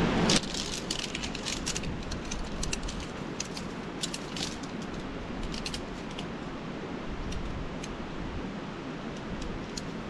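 Shock-corded tent pole sections clattering and clicking together as they are unfolded and joined, with a quick run of clicks at first that thins out later, over a steady hiss.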